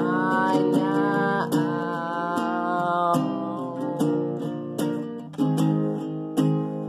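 Acoustic guitar with a capo being strummed in a steady rhythm of chords. For about the first three seconds a sung note is held over it and then stops, leaving the guitar playing alone.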